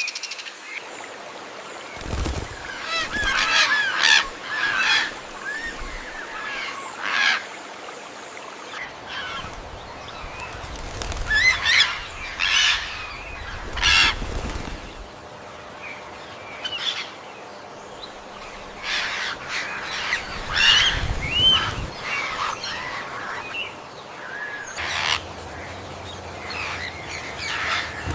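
Peafowl calling: loud calls in clusters every few seconds, each cluster a quick run of gliding cries, with quieter gaps between.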